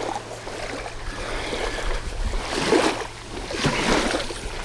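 Small waves washing and splashing against the shoreline in the shallows, in several surges from about halfway through, over a steady rumble of wind on the microphone.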